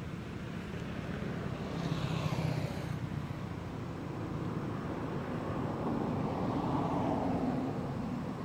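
Steady rumble of passing motor traffic, swelling about two seconds in and again toward the end.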